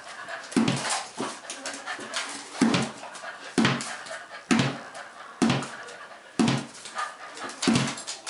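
Cocker spaniel barking in short, sharp barks about once a second, a dog worked up over a game of fetch.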